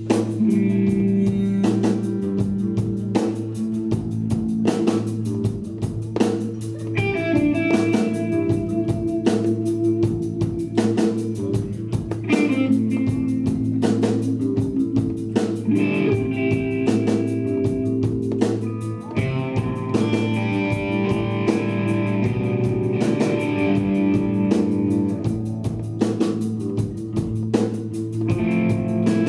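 Blues-rock band playing live in an instrumental passage, with no vocals: electric guitar, bass guitar and drum kit, and sustained high lead notes in stretches.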